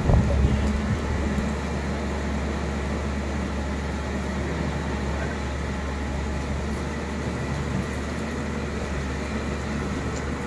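Steady rushing noise of fast-flowing floodwater with a constant low rumble underneath, a little louder in the first second.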